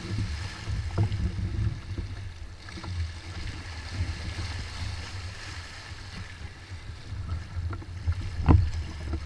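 Wind buffeting the camera microphone and water rushing and splashing along the hull of a Hobie 16 catamaran under sail. A few short knocks come through, the loudest about eight and a half seconds in.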